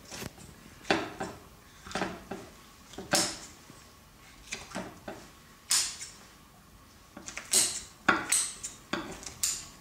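Knife cutting a breast off a roast chicken, its blade clinking and scraping against the china plate in a dozen or so short, scattered knocks.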